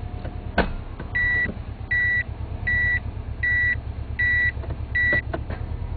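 Subaru EJ20 with five-speed automatic idling, a sharp metallic clunk about half a second in as the selector goes from P into R on a slope without the parking brake set, the parking lock letting go of the car's weight; the maker says this is within spec. Then the reverse warning beeper beeps six times at an even pace, with a couple of faint clicks near the end.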